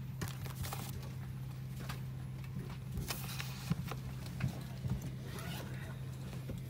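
Steady low cabin hum of a Boeing 737-700 parked at the gate, with scattered light clicks and knocks from handling around the seat back.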